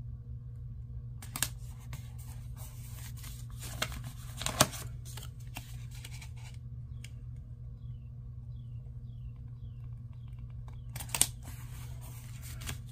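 Washi tape and paper handled on a journal page: soft rustles and a few short crackles and tears, the sharpest about four and a half seconds in and near the end, over a steady low hum.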